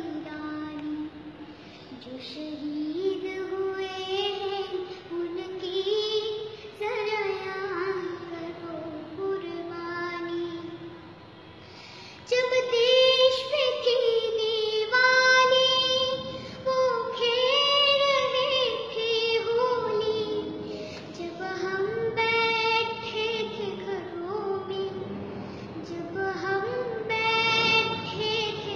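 A young girl singing solo without accompaniment, holding long, sliding notes in a film-song style. About twelve seconds in she moves into a louder, higher phrase.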